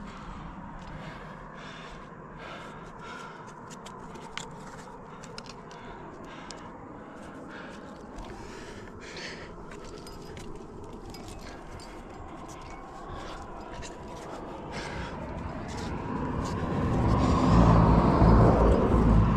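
A car passing on the road, its engine and tyre noise swelling over a few seconds and peaking near the end. Before it, light scrapes and taps of hands and gear on the sandstone.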